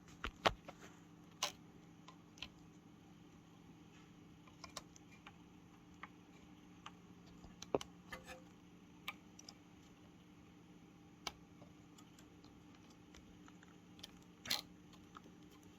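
Sparse small clicks and taps of plastic parts being handled as flex ribbon cables are fitted into the car radio's connectors, about one every second or two, over a faint steady hum. A slightly louder cluster of clicks comes near the end.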